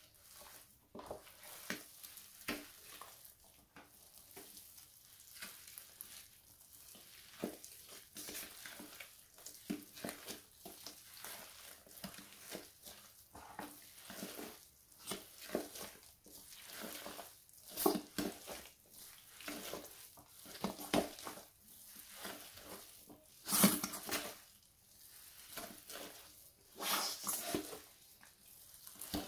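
Bare feet treading and squishing moist chocolate cake in a steel pot: irregular wet squelches and sticky smacks, with several louder squelches in the second half.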